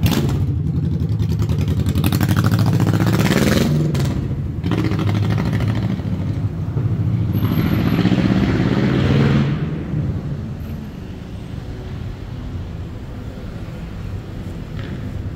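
Road traffic: motor vehicles passing close by, engine rumble and tyre noise swelling and fading twice. After about ten seconds it settles to a lower, steady traffic hum.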